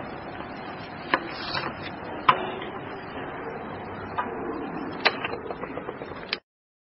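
A handful of sharp, irregular clicks and knocks over a steady hiss of room noise, then the recording cuts off abruptly into silence.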